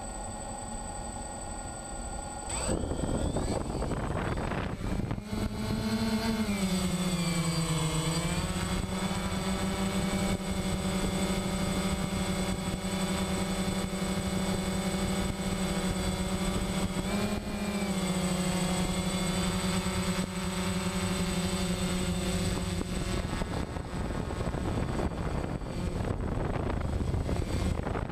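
DJI Phantom quadcopter's electric motors and propellers heard from the drone itself: they spin up sharply for takeoff about two and a half seconds in, then hold a steady multi-tone buzz in flight that dips in pitch near eight seconds and rises briefly near seventeen. Toward the end the buzz gives way to wind noise.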